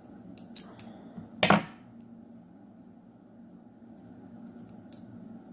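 Light clicks and ticks of thin craft wire being twisted into a loop with needle-nose pliers, with one louder metal clack about a second and a half in and a single small tick near the end.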